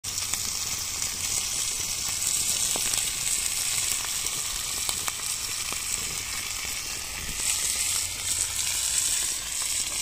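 Beef steak and garlic cloves sizzling in melted butter on a ridged grill pan over an open wood fire: a steady frying hiss with a few small pops.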